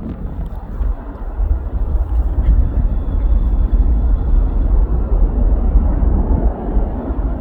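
Airliner taking off: a deep, steady engine rumble that swells about a second and a half in and then holds.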